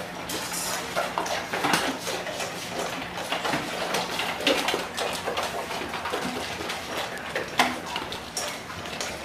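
Dogs eating from their bowls: irregular clinks and clatters of the bowls as they eat.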